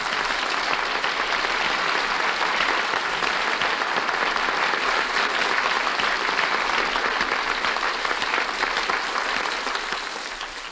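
Audience applauding steadily, dying away near the end, on an old radio broadcast recording.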